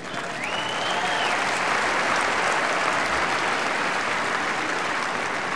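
Large audience applauding steadily, with one faint high whistle-like line near the start.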